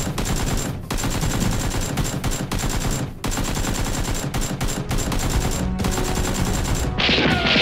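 Rapid automatic gunfire, dense shots in quick succession throughout: an edited-in gunfire sound effect standing in for the Nerf blasters. Near the end a few falling whistling tones come in over it.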